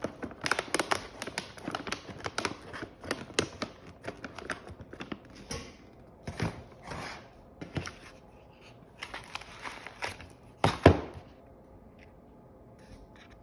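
Irregular taps, knocks and rustling, as of things being handled and set down, with one louder thump near the end.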